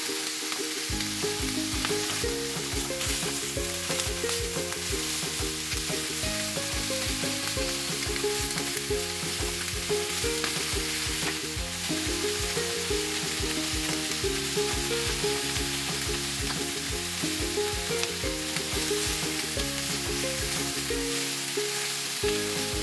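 Pieces of barramundi head sizzling steadily as they sear dry, without oil, in a non-stick wok, turned over now and then with metal tongs. Background music with a melody and bass line plays under it from about a second in.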